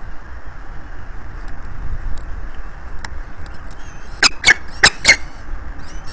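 Steady wind rumble on the nest-cam microphone. About four seconds in come four short, sharp, squeaky calls in quick succession from a peregrine falcon chick begging for food.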